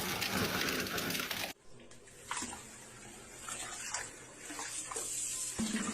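Refrigerator door water dispenser running hard, a loud steady gush that cuts off abruptly about a second and a half in. A quieter stretch follows with scattered small clicks and knocks.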